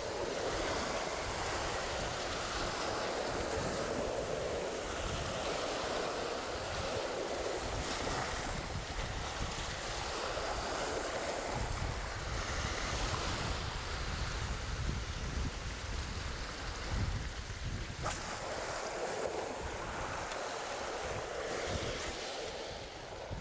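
Sea waves breaking and washing over shoreline rocks, surging every few seconds, with wind rumbling on the microphone.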